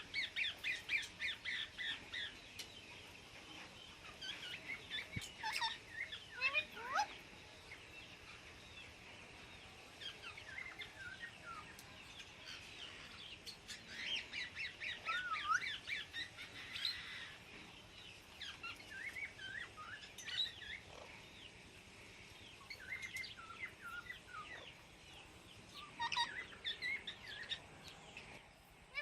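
Parrots chirping and calling in bursts: runs of quick, high, repeated chirps with some short whistled glides up and down, and brief pauses between the runs.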